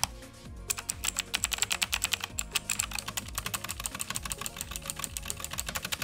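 Fast typing on a Machenike K7 mechanical keyboard with clicky blue switches: a dense, rapid run of key clicks that starts after a short pause about a second in.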